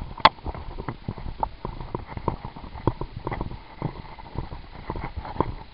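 Footsteps on straw-strewn dirt, an irregular patter of short knocks about two or three a second, with one sharp, louder click about a quarter second in.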